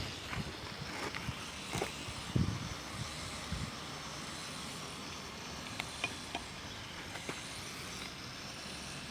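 Quiet, steady background hiss with a few light clicks and knocks scattered through it.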